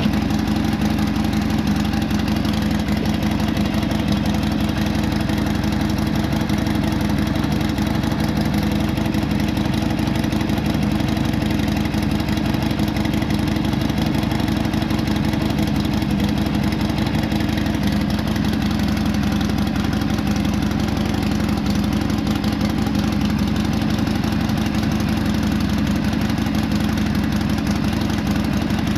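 Harley-Davidson Sportster Iron 883's air-cooled, fuel-injected Evolution 883 cc V-twin idling steadily, just started. It is circulating fresh oil: the pump draws it from the oil tank up through the engine after an oil change.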